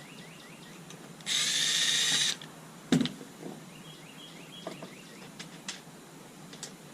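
A handheld power tool runs in one short burst of about a second, followed by a single sharp knock about a second later.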